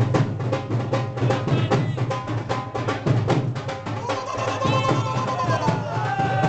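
Loud music with a fast, steady drum beat. A held, gliding melody line comes in about four seconds in.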